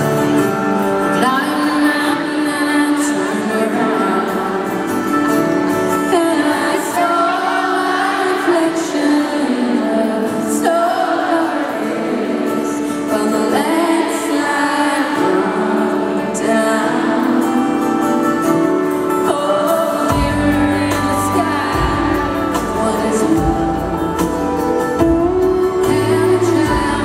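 Live country music with a female lead vocal over acoustic instruments, recorded from the audience in an arena. A low bass part comes in about twenty seconds in.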